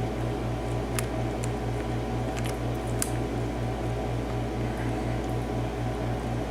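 A few faint, sharp clicks of a lock pick working the pin stack of a pin-tumbler padlock, over a steady low machine hum that pulses about four times a second.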